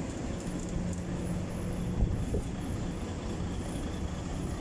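Steady low rumble of background noise in a truck workshop, with a steady low hum that stops about two seconds in and a single knock at about the same moment.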